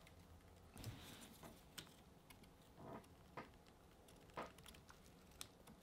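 Near silence, broken by a handful of faint ticks and rustles from hands bending a wired field elm bonsai branch, the wire and twigs creaking as the branch is put under stress.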